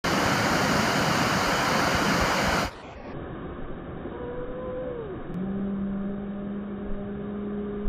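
White water pouring over a river weir, a loud steady rush that cuts suddenly to a quieter, duller rush about two and a half seconds in. From about four seconds a low drawn-out tone sounds over the water, sliding down in pitch and then holding steady.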